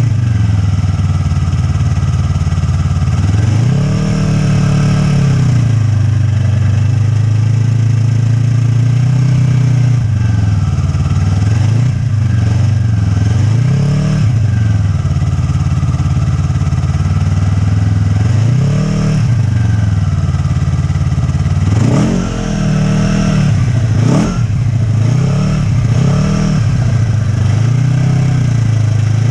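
Snowmobile engine running under way, its pitch rising and falling again and again as the throttle is opened and eased off.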